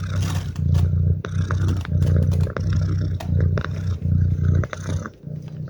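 Domestic cat purring close to the microphone, a low rumble that swells and breaks about twice a second as the cat breathes in and out, with scattered small clicks over it.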